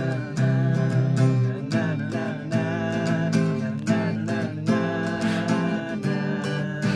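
Background music led by strummed acoustic guitar with a steady beat.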